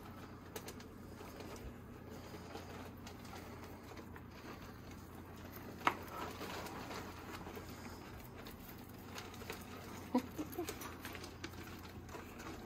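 Pet rats moving about in a wire cage with small scratches and clicks. There is a sharp knock about six seconds in, as a food bowl is set on the metal cage shelf, and a brief cluster of knocks and squeaky sounds a few seconds later.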